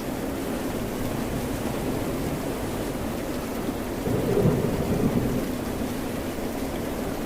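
Steady rain and ocean surf noise, with a low rumble that swells about four seconds in and fades over the next second or two.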